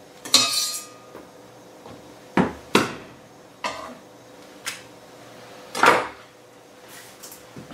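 Chef's knife knocking and clinking against the cutting board and enamelled cast-iron pot as garlic cloves go into the pot: about six separate sharp knocks. The loudest comes near the end, when the knife is laid down on the counter.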